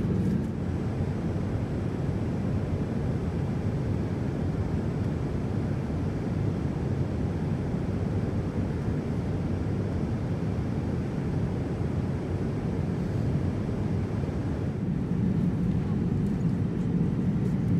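Steady low drone of a Boeing 787-9 airliner's cabin in cruise flight, engine and airflow noise as heard from an economy seat, a little louder in the last few seconds.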